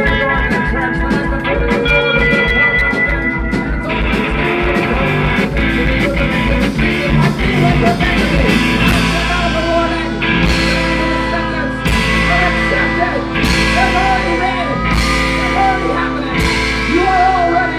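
Live rock band playing an instrumental passage with guitar. A fast run of drum hits opens it, and from about halfway it settles into crash cymbal hits about every second and a half.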